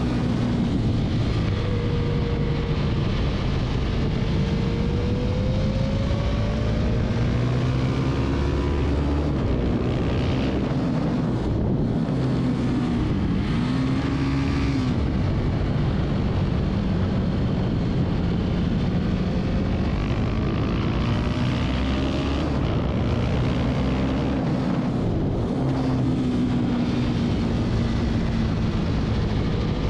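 Husqvarna 701 supermoto's single-cylinder engine revving hard and pulling through the gears, its pitch climbing and falling with shifts and braking for corners, with wind rushing past at speed.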